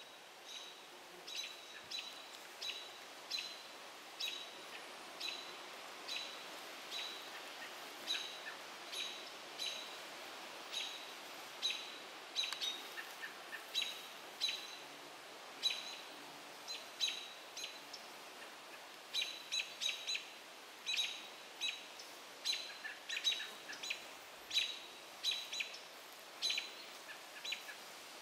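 American robins giving sharp, repeated alarm calls, about one or two a second, in alarm at a great gray owl perched in their territory.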